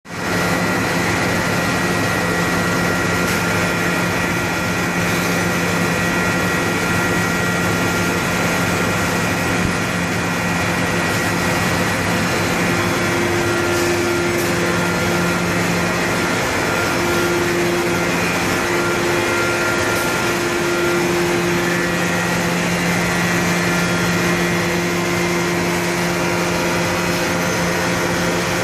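Flamar buffing and dedusting machine running with its blower and dust aspirator: a loud, steady rush of air over a machine hum with a few steady tones. About halfway through, a further tone comes in and drops in and out.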